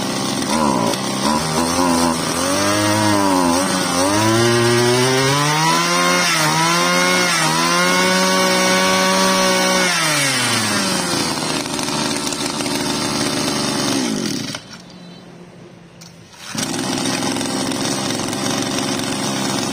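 Mitsubishi TL261 26cc two-stroke backpack brush cutter engine revved up and down several times, then held at high speed. It drops back to a steady idle about eleven seconds in. The sound falls away for a couple of seconds near the end before the idle comes back.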